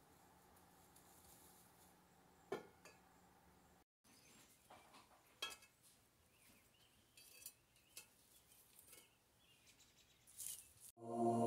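Faint, scattered small clicks and soft rustling of dried herb sprigs being snapped and handled, with a few light clinks.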